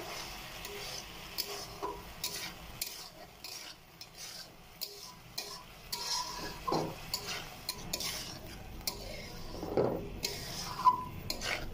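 A metal spatula stirring and scraping thick tomato-chicken sauce around a metal pan, with irregular clinks against the pan and a light sizzle. A few sharper knocks come near the end.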